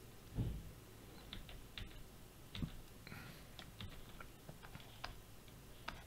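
Faint, scattered clicks and light taps of a pen stylus on a drawing tablet, at irregular intervals.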